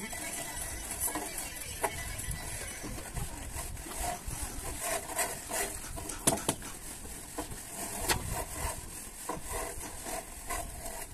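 Hand-work noise from plastering a wall with cement: scattered knocks and scrapes of wooden battens and tools on wet plaster.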